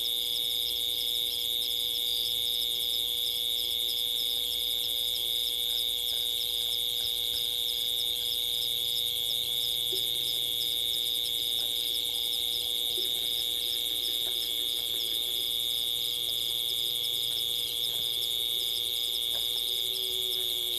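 Steady high-pitched chorus of night insects: a continuous trilling with a faster pulsing chirr above it, with a few faint snaps now and then.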